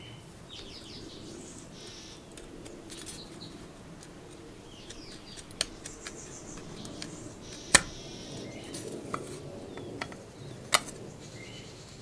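Sharp metal clicks and clinks from handling small metal parts or tools, the loudest about two-thirds of the way in, with a few lighter taps around it. Birds chirp faintly in the background.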